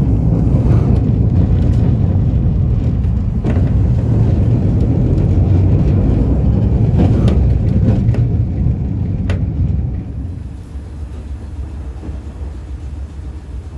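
Running noise of 102-year-old Sydney P-class tram 1497 heard on board: a steady low rumble from the wheels and running gear, with a few sharp clicks. It quietens clearly about ten seconds in.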